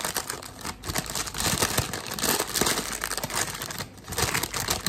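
Baking parchment paper crinkling and rustling as hands fold it and pull its sides tight around a slice of cake, a dense run of crackles with a brief lull near the end.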